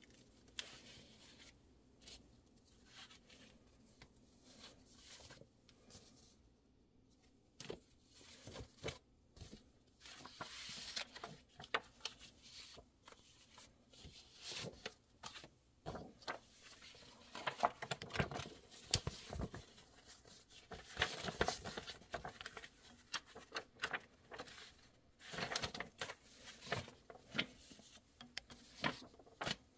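Old paper brochures and manuals being leafed through and shifted by hand: dry paper rustling, sliding and crackling in irregular bursts with quiet stretches between.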